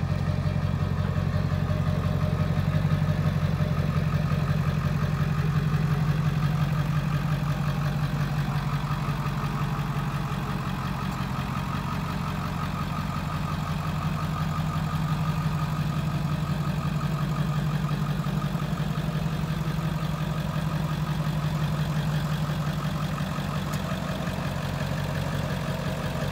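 2000 Ford Excursion's 7.3-litre Power Stroke turbo-diesel V8 idling steadily.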